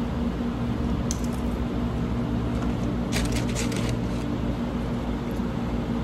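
Steady low mechanical hum with a few held tones, and a brief crackle of handled paper or wrapping about three seconds in.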